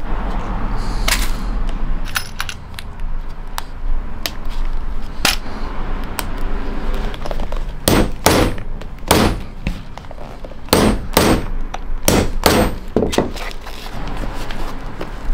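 Small metal eyelets and lacing hooks clinking as they are handled, with scattered sharp clicks. About halfway through comes a run of hard metallic strikes as the hooks are set into a leather hiking boot upper.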